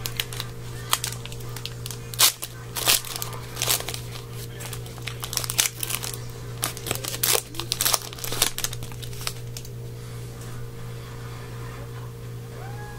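Foil wrapper of a trading card pack crinkling and tearing as it is opened and handled, in sharp crackles that die down after about nine seconds, over a steady low hum.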